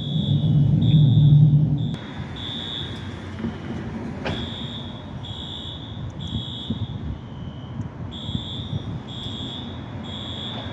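Station fire alarm sounding: a high electronic tone pulsing on and off, about three pulses every two seconds. A loud low hum underneath cuts off about two seconds in.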